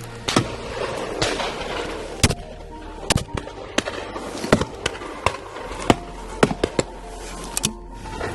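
About a dozen shotgun shots at uneven intervals, some in quick pairs, from guns on a driven game-bird shoot, over background music.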